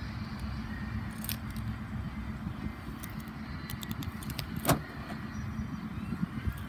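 Light clicks and jingling of a key fob, then, about two-thirds of the way in, one sharp clunk as the 2018 Ford F-150's remote tailgate release unlatches the tailgate and it starts to lower. A steady low rumble runs underneath.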